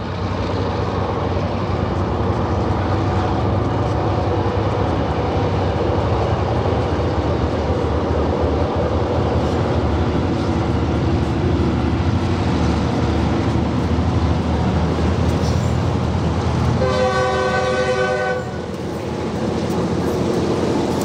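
Diesel freight locomotives approaching and passing, their engines running steadily. Near the end the lead locomotive sounds its air horn in one chord-like blast of about a second and a half.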